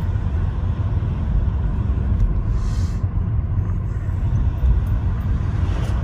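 Car driving along a street, heard from inside the cabin: a steady low rumble of road and engine noise.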